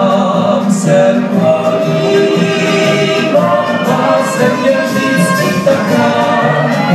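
Live folk dance music from a band, with voices singing along.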